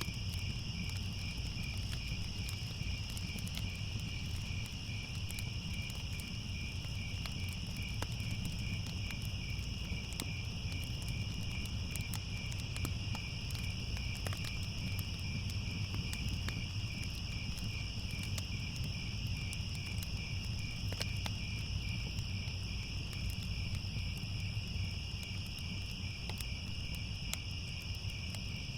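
Crickets chirping in a steady, continuous chorus, a fast even pulsing trill. Underneath, a fire crackles faintly with scattered small pops over a low rumble.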